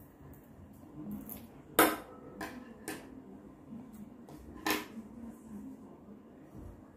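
Small craft tools handled on a hard tabletop: a few sharp knocks and clicks as scissors are put down and a paintbrush taps a plastic glue bowl, the loudest about two seconds in and another near five seconds.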